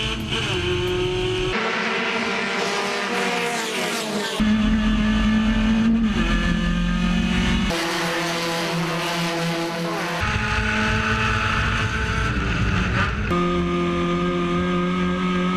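Touring race car engines running hard, their pitch climbing and dropping with throttle and gear changes, in several short segments that switch abruptly about every three seconds.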